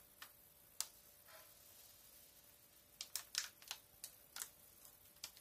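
Crinkling of a breadcrumb packet as it is squeezed and tipped to pour into a bowl: faint scattered crackles, with a quick run of them about three seconds in.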